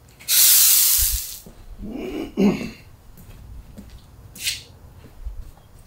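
Garden hose spray nozzle opened, a hard jet of water hissing for about a second before it shuts off. Fainter short sounds follow.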